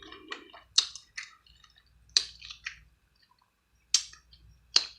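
Close-up eating sounds of someone chewing crab dipped in butter sauce: a handful of sharp, wet mouth smacks and clicks, about four loud ones with softer ticks between.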